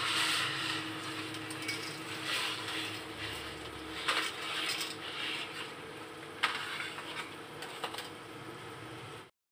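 Water boiling in a pan with a steady hiss while a bundle of dry spaghetti is slid from its cardboard box into it. The dry strands rattle and clatter against the box and the pan, with a sharp tick about four seconds in and another about two seconds later.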